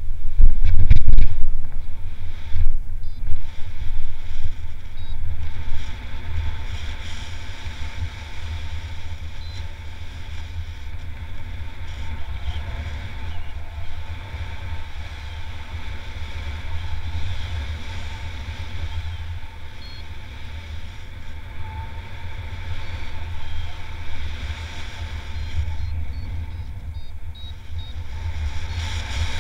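Wind rushing over the camera microphone of a paraglider in flight: a loud, low buffeting rumble that is strongest and gustiest for the first few seconds, then settles into a steadier rush.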